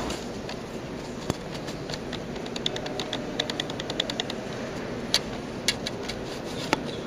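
Ambience of a large stone-walled hall: a steady low murmur, with a quick run of sharp clicks about two and a half seconds in, then a few single clicks.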